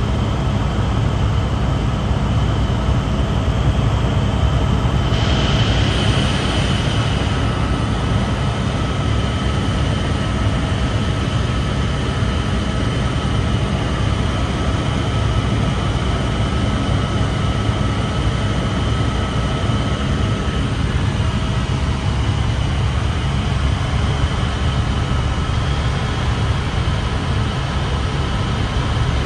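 Helicopter in flight heard from inside the cabin: a steady, deep rotor and engine rumble with a thin, high whine held over it.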